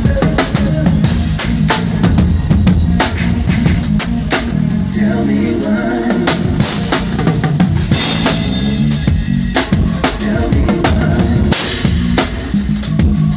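Full drum kit played hard and fast: dense kick, snare and rimshot hits with cymbal crashes about seven and eleven seconds in, over low pitched bass notes.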